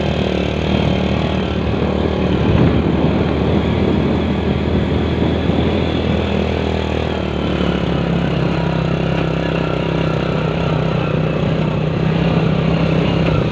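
A small motorcycle's engine running steadily while it rides along a rough path, heard from on board the bike with its road and wind noise; the engine note shifts slightly about halfway through.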